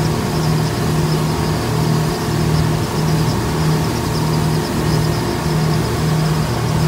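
Twin Tohatsu 250 four-stroke V6 outboards running steadily at cruising speed, a low drone that throbs about twice a second over rushing wind and water.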